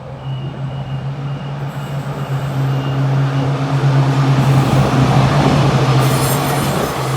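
A rail motor passing through the station. Its steady low drone builds to its loudest about five seconds in, then eases off, with a short burst of high hiss near the end.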